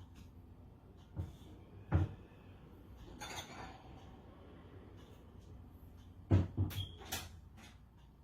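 A few separate knocks and clatter of dishes and utensils being handled: two knocks, a brief scrape, then a quick cluster of four or five knocks near the end.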